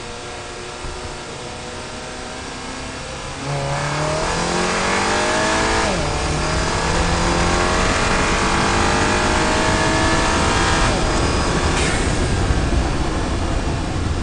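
Audi A3 sedan's 2.0 TFSI turbocharged four-cylinder engine accelerating. After a few seconds of steady running, the engine note climbs, drops sharply once at a gear change about halfway through, then climbs again until the throttle is lifted near the end, leaving steady engine and road noise.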